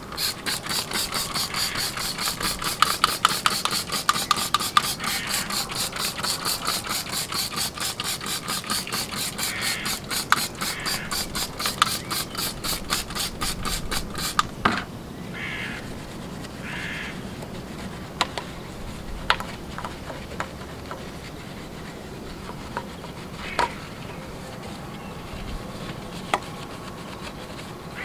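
Hand trigger spray bottle pumped rapidly onto an alloy wheel, a quick hissing squirt about four or five times a second, until it stops about halfway through. After that come quieter rubbing sounds and occasional clicks.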